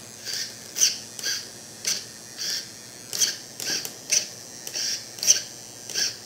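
EXI D227F digital metal-gear steering servo whirring in short bursts, about two a second, as it swings the buggy's front wheels back and forth; the servo is noisy.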